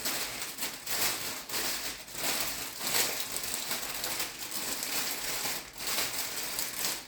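Plastic gift-basket wrap crinkling and rustling as it is handled, with a few brief let-ups.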